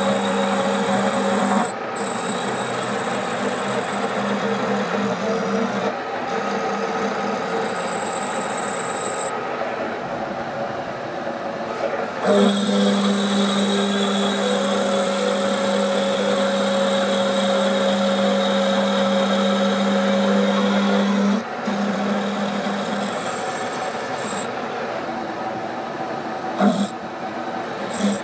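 Bridgeport milling machine running, its carbide end mill taking a light skim cut along the edge of a locomotive crosshead. It makes a steady hum with a thin whine, which grows louder for several seconds from about twelve seconds in.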